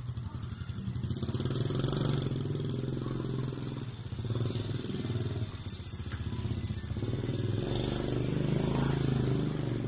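A small engine, motorcycle-like, running steadily with a pulsing low note that swells and eases in several surges.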